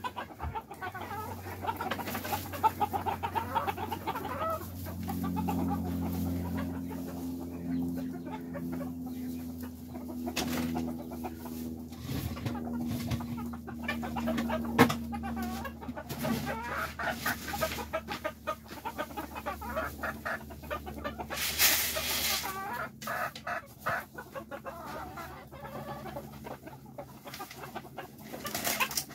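Silkie chickens clucking and calling, with drawn-out low calls through the middle and many short sharp sounds. A brief loud rustle comes about 22 seconds in.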